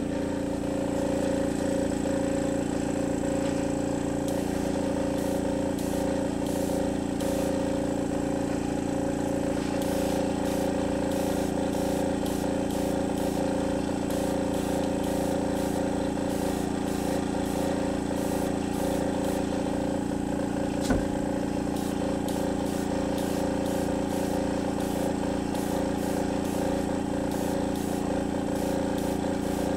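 Airbrush air compressor running: a steady motor hum with a regular low pulsing, under the hiss of air through the Paasche Talon double-action airbrush as it sprays paint. One brief click about two-thirds of the way in.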